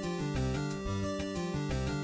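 Background music with a steady bass beat and held notes.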